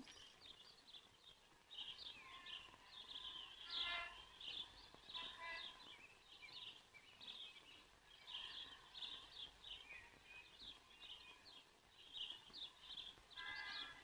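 Faint chirping of small birds: short calls repeated every half second or so throughout, some sliding downward.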